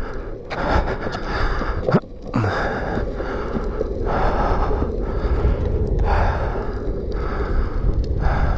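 A man's heavy, labored breathing: long breaths about every two seconds, from the exertion of riding a longboard while getting over a cold. A steady low rumble runs underneath.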